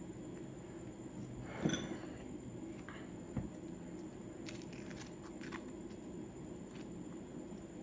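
Dry onion skins being peeled off by hand: a few short papery crackles and rustles, the loudest about a second and a half in, with a soft knock about three seconds in, over a steady low hum.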